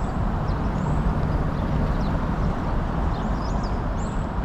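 Steady rumble of passing highway traffic, with a few short, faint high chirps over it.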